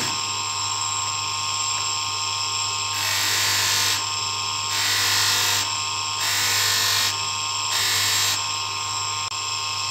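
Bench polishing motor running steadily with its buffing wheel spinning, a constant hum and whine. A bar of polishing compound is held to the wheel at first. From about three seconds in, a metal ring is pressed against the wheel in about four short strokes, each a burst of hissing friction.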